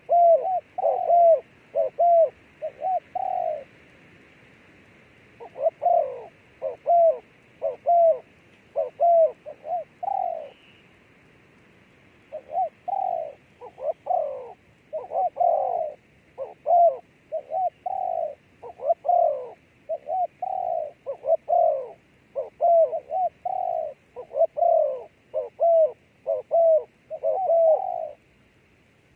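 Dove cooing: a long series of short repeated coos, about two a second, in runs broken by two short pauses, one about four seconds in and one about ten seconds in.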